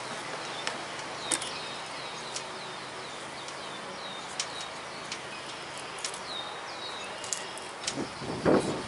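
A songbird in the background repeating short, falling chirps over a steady outdoor hiss, with a few faint clicks; louder scuffing handling noises come in near the end.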